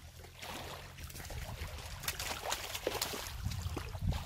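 A hooked rohu splashing and flapping in shallow water at the shore's edge as it is drawn in and landed: a run of short splashes that grows busier after the first second or so.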